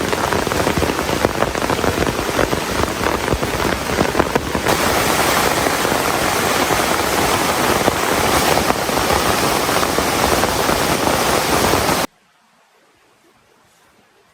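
Heavy rain pouring down, a loud, dense hiss with fine pattering. It changes slightly about a third of the way in and cuts off suddenly near the end, leaving only a faint background.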